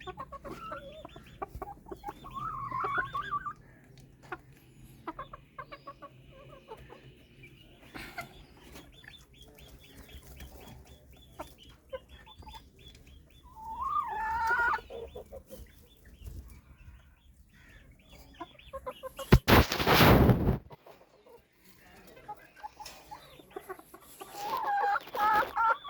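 Silkie chickens clucking in three bouts, a few seconds in, around the middle and near the end, over many faint clicks. A loud noise burst of about a second and a half cuts in past the middle.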